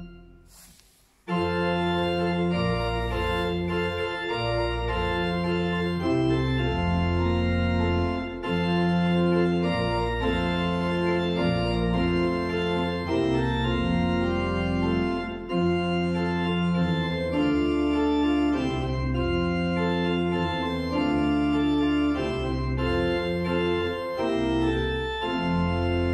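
Church pipe organ playing sustained chords that change every second or two. The sound drops away just at the start and the playing resumes about a second in.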